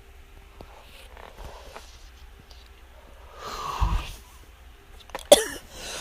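A person sneezing: a softer breathy burst just before four seconds in, then a sudden, much louder sneeze about five seconds in.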